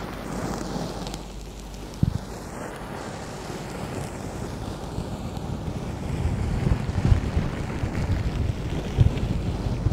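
Brushes swept over the silicone ears of a binaural microphone, giving a dense rustling, scratching noise right on the microphone, louder in the second half. A few sharp knocks, the first about two seconds in.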